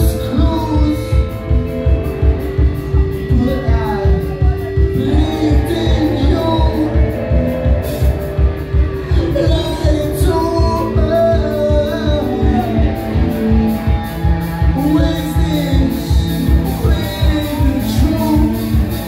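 Live rock band playing: electric guitars, bass guitar and a steady drum beat, with sung vocals over the top.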